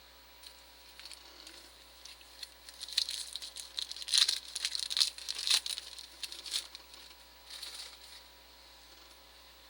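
Foil wrapper of a 2010 Topps football card pack crinkling as it is handled and torn open, with sharp little clicks, loudest in the middle and again briefly near the end.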